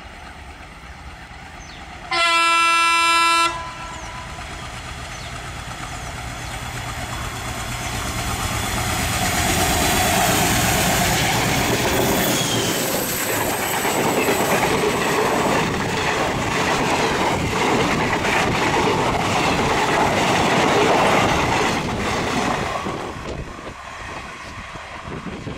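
ALCo diesel locomotive sounds one horn blast of about a second and a half, then approaches and passes close by with its engine running loud and the coaches clattering over the rail joints. The sound fades as the train moves away near the end.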